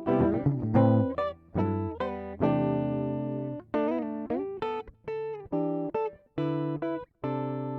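Background music: guitar playing plucked notes and chords in short phrases, each note ringing and fading.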